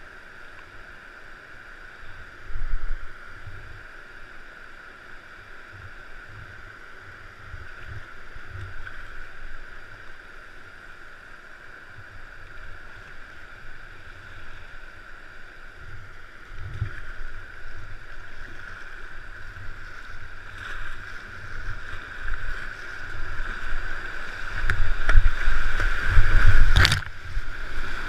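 River water rushing over a weir, a steady rush that grows louder near the end as the kayak closes in on the white water. Dull low thumps come and go, with one sharp knock near the end.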